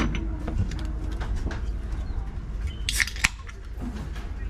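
Inside the cab of a vintage two-axle tram: a steady low rumble with a run of sharp metallic clicks and clinks, the loudest cluster about three seconds in.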